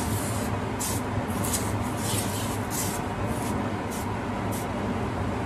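Kitchen exhaust fan running with a steady whooshing hum, with short hissing bursts on top every half second or so.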